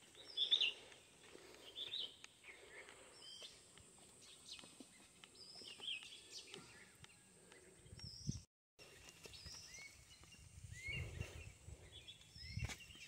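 Small birds chirping, short hooked calls repeating every second or two over quiet open-air ambience, with a few low thumps near the end.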